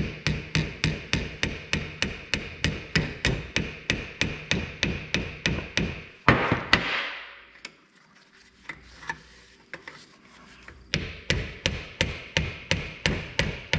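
Hammer gently tapping on the steel steering rack of an Oliver 1650 power steering cylinder, about three light taps a second, to drive the end cap out. One harder blow comes about six seconds in, then a pause of about four seconds with a few faint clicks, and the steady tapping resumes.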